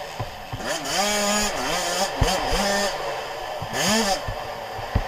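Suzuki RM85's two-stroke single-cylinder engine heard up close from the bike while riding, its pitch rising and falling several times as the throttle opens and closes, with a few low thumps.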